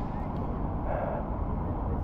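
Wind buffeting the microphone of a body-worn camera, a steady rough low rumble, with a faint distant voice about a second in.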